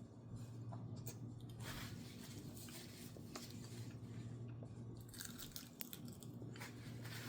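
Faint eating sounds: chewing and biting with scattered light clicks and a few brief crunchy rustles, over a steady low hum.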